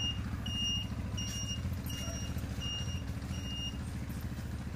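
300cc ATV engine idling steadily, with the turn-signal beeper giving short high beeps about every 0.7 s that stop about three and a half seconds in.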